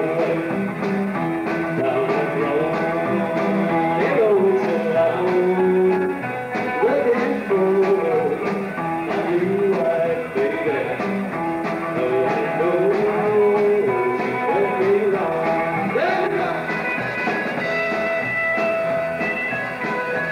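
Live rock-and-roll band playing, with drum kit, upright double bass and electric guitar; the drums keep a steady beat of about two hits a second.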